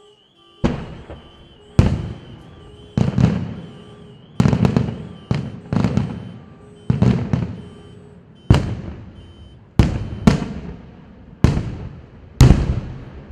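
Aerial fireworks shells bursting in the sky, about a dozen loud booms a second or so apart, each fading in a long echoing tail.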